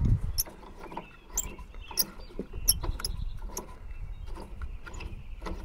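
Sparse, irregular small metallic clicks and scrapes as a tie rod end is turned by hand along its reverse-threaded rod to adjust wheel toe, over a low rumble.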